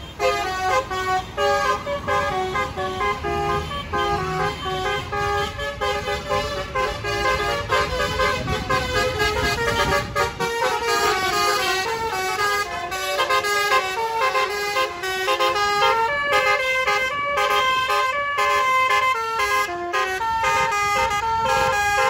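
Potre Koneng bus's multi-tone basuri telolet horn with roof-mounted trumpets, loud, playing a quick melody of stepped notes throughout. A bus engine's low rumble runs under it for the first ten seconds and then drops away.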